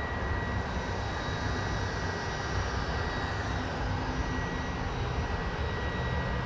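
Steady mechanical drone of a large workshop's background machinery, low rumble with a thin constant high whine over it.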